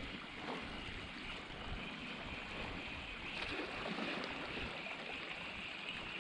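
Shallow sea water lapping and trickling among shoreline rocks, a steady wash that swells a little about three and a half seconds in.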